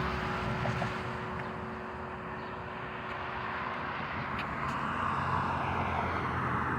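The hum of a church bell dying away over the first few seconds, under a steady rumble of road traffic that swells a little later on.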